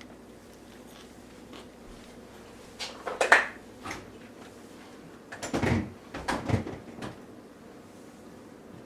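A few knocks and clatters of kitchen items being handled and set down, in two clusters about three and six seconds in.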